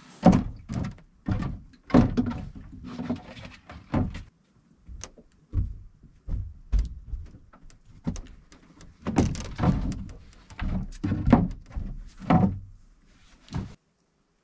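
An irregular series of dull thumps and knocks, about one or two a second, that stops abruptly near the end.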